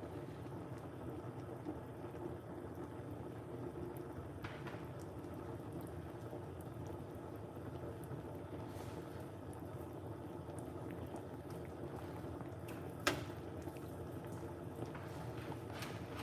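A pot of soup boiling on an electric hotplate, with a steady bubbling. One sharp click comes about thirteen seconds in.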